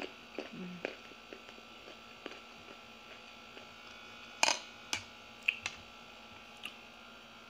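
Eating sounds: chewing, and a few short sharp clicks and taps as fingers pick at a plate of grilled fish. The loudest click comes about four and a half seconds in. A steady electrical hum runs underneath.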